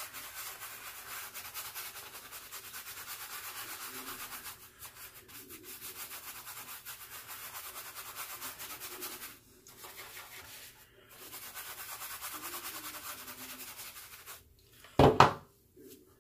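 Shaving brush whisking lather, a fast, steady, scratchy bristle scrub with a few short pauses. A single loud thump near the end.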